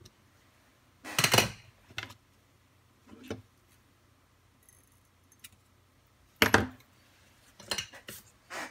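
Handling noise from a Kato HO turnout's plastic base and decoder circuit board being fitted together and set down: a series of short clattering knocks, loudest about a second in and again about six and a half seconds in, with smaller clicks between.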